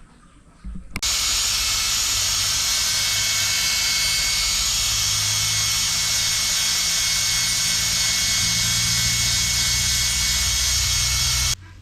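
A workshop machine running with a loud, steady rushing hiss over a low hum. It starts abruptly about a second in and cuts off near the end.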